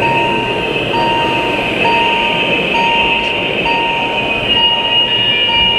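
Model level crossing's electronic warning tone sounding, a steady beep that repeats about once a second with only brief gaps, over a steady background hubbub.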